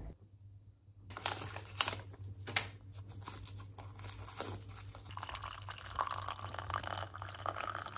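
A paper tea-bag wrapper crinkling and tearing, with a run of sharp clicks starting about a second in. Then, in the last couple of seconds, water pours into a ceramic mug onto a tea bag.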